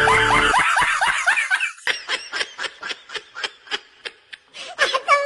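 Laughter: a rapid run of short, evenly spaced bursts, about four a second, starting about two seconds in. Before it comes a busy stretch of quick rising, sliding tones.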